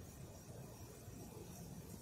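Faint steady low background noise: quiet ambience with no distinct event.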